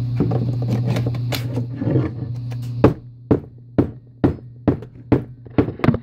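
Motor of a Porter Cable 18-volt cordless tool, running steadily on a 20-volt lithium-ion battery through an adapter. From about three seconds in, a series of sharp knocks comes roughly twice a second.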